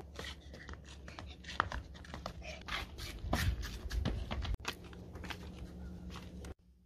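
Footsteps of several people walking on a concrete path, an irregular run of scuffs and taps over a low rumble, cutting off suddenly near the end.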